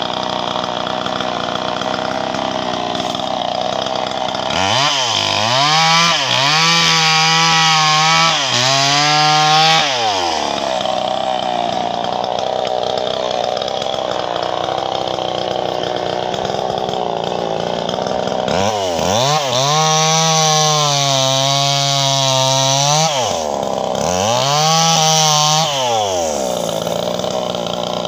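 Two-stroke Stihl chainsaw idling, revved up to high speed in two spells, about five seconds in and again near twenty seconds: each rev rises quickly, holds, and drops back to idle, three times in the first spell and twice in the second.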